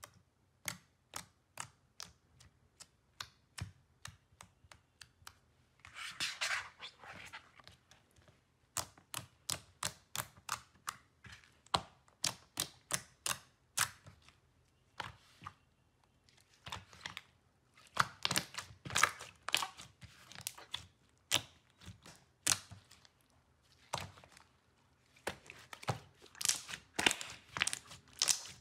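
Fingers poking, pressing and kneading glossy slime, making a long run of sharp wet clicks and pops in irregular clusters, with a denser squishing stretch about six seconds in.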